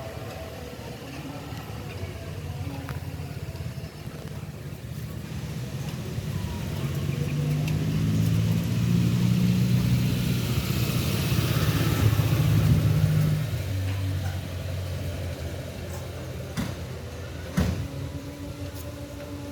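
A large vehicle's engine, most likely a bus at the terminal, running. It grows louder over several seconds, peaks with a hiss, then fades away. A sharp click comes near the end.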